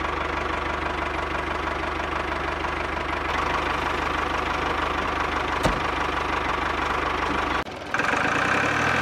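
A motor running steadily with a fast, even knocking beat. About eight seconds in it cuts out briefly and a higher-pitched running sound takes over.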